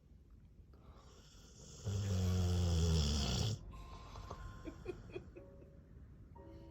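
A Rottweiler snoring: one loud, deep snore about two seconds in that lasts nearly two seconds.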